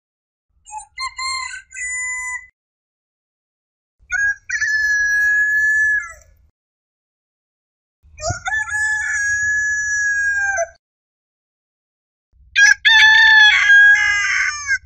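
Rooster crowing four times, a few seconds apart, each cock-a-doodle-doo ending in a drawn-out held note; the last crow is the loudest.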